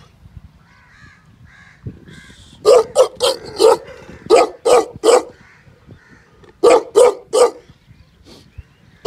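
Pakistani bully-type dog barking: about ten short, loud barks in three quick runs, starting about two and a half seconds in.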